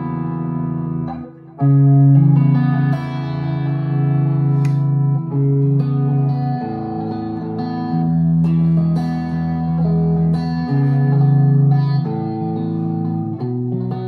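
2023 PRS Special Semi-Hollow electric guitar playing chords that are picked and left to ring, changing every second or two, with a brief stop about a second and a half in.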